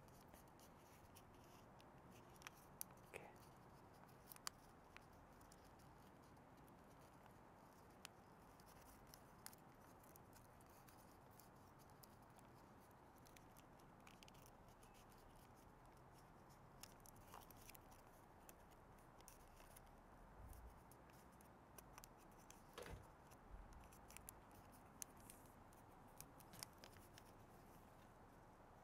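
Faint crinkling and creasing of a small sheet of origami paper being folded by hand: scattered soft clicks and rustles over near silence, a little busier in the last few seconds.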